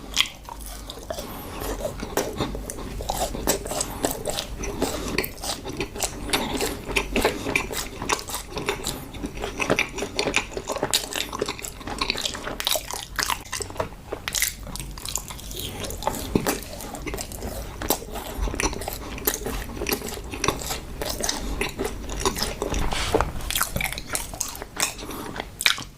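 Close-miked biting and chewing of yakgwa, Korean honey-glazed fried cookies: a continuous run of irregular crunchy, clicking mouth sounds.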